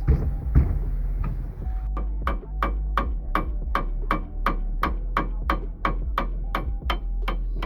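A hammer striking metal in a steady series of blows, about three a second, each with a short metallic ring, starting about two seconds in: work on a seized rear brake caliper bolt that would not undo.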